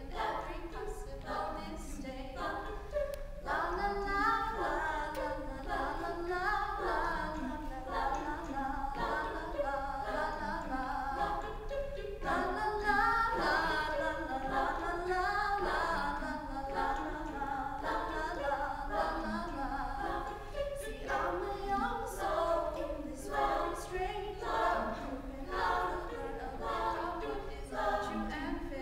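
All-female a cappella group singing: a soloist's voice carried over the rest of the group's wordless backing harmonies, with no instruments.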